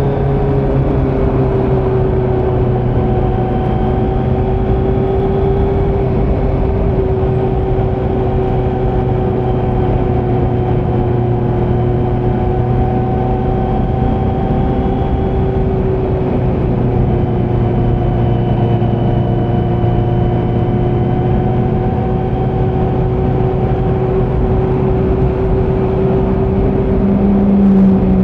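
Kawasaki Z900's inline-four engine running through a Leo Vince muffler on stock headers with no dB killer, held at a fairly steady pitch with only slight drifts. Near the end the note briefly gets louder and deeper.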